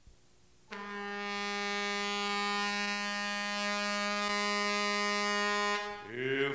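A single long horn blast on one steady, buzzy pitch for about five seconds, followed by a short gliding sound, with theme music starting at the very end.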